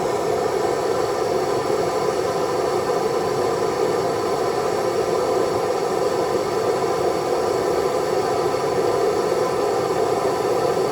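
Steady hissing roar of a blowtorch flame heating a seized part, cutting off abruptly at the end.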